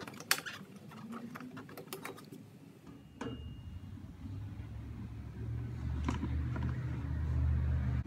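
A few sharp clicks and taps as a hand works the metal harness-slot bezel in a foam seat back. From about three seconds in, a low steady rumble starts and grows louder near the end.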